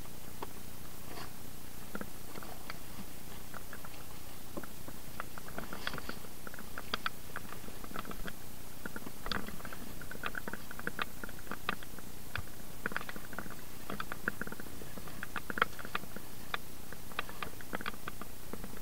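Rummaging through rubbish: irregular light clicks, rustles and small knocks of objects being handled and shifted, with a slightly sharper clatter near the end.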